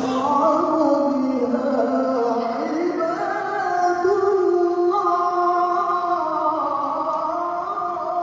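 A man reciting the Qur'an in melodic tilawah style, holding long ornamented notes that step up and down in pitch.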